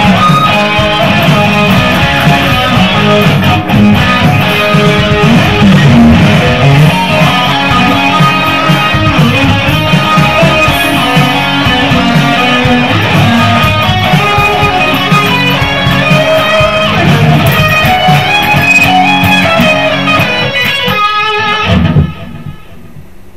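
Electric guitar through an amplifier playing a shred-style lead in a dense instrumental piece. The music stops abruptly near the end, leaving a faint steady hiss.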